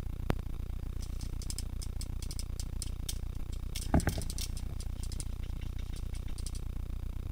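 Light scattered ticking and rattling, with a sharp click just after the start and a louder knock about four seconds in, from paintball gear and a helmet camera moving against tall grass. A steady low rumble runs underneath.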